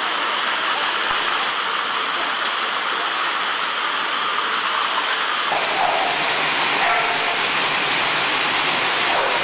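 Steady rushing, rattling noise of non-motorised slat treadmills turning under dogs running flat out. The sound changes abruptly about five and a half seconds in.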